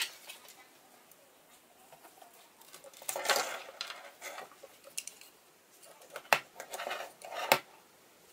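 Small electronics boards and a bundle of jumper wires being handled and set down on a wooden tabletop: a click at the start, a rustle of wires and boards about three seconds in, and a few light knocks on the wood later on.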